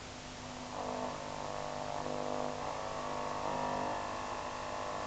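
Tefag Tefadyn 162W valve radio (1936/37) being tuned: under a low mains hum and hiss, a station's sound comes in about a second in as several steady tones, which change a few times as the dial moves.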